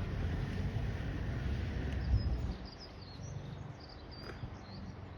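Jet engine noise from an Airbus A350 airliner passing overhead: a steady low rumble that drops off about two and a half seconds in. Small birds chirp faintly after that.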